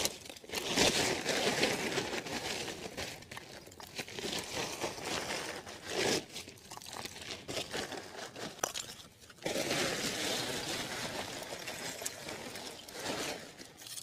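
A woven plastic sack crinkles and rustles as lumps of wood charcoal are pulled out of it and dropped onto a fire, with the crunch and clatter of the charcoal. The rustling comes in spells, loudest about a second in and again from about nine and a half seconds.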